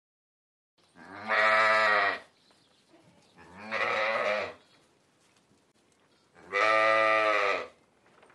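Sheep bleating three times: long, low, steady-pitched bleats of just over a second each, a couple of seconds apart.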